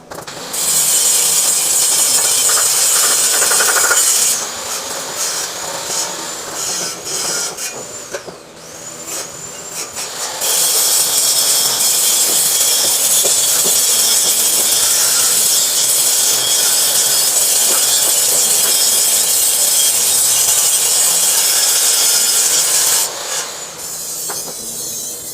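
Welding arc hissing and crackling steadily through two welds: a short one of about four seconds, then, after a quieter break of about six seconds, a long one of about twelve seconds that stops near the end.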